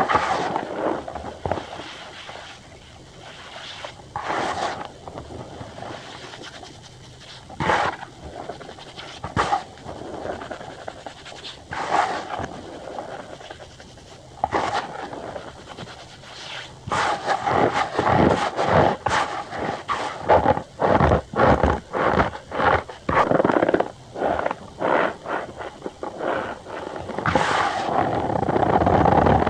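Cornstarch powder being squeezed and pressed by hand, giving short squeaky crunches. They come a few at a time at first, then many in quick succession in the second half.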